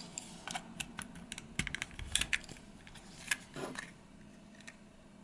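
Small plastic clicks and snaps from a VW Golf Mk2 dash switch housing as its clip tabs are prised apart with a small screwdriver, with a quick run of clicks about two seconds in and a few scattered ones after.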